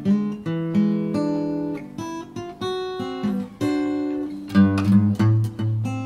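Fender PM-3 acoustic guitar playing slow Delta blues in A: picked single notes and short phrases over low bass notes, each note ringing and fading. The loudest, quickest group of notes, with a heavy bass, comes about three-quarters of the way through.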